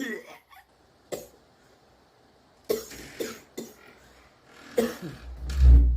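A person's put-on coughs: about five short, sharp coughs spaced roughly a second apart. Near the end comes a deep low boom, the loudest sound.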